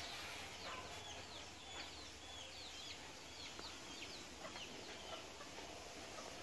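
Birds chirping: many short, high calls in quick succession, over faint steady background noise.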